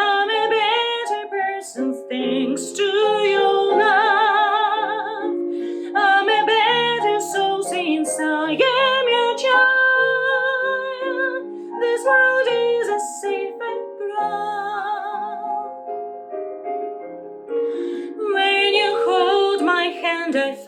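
A solo female voice sings a slow ballad with strong vibrato over soft instrumental accompaniment, with short breaks between phrases.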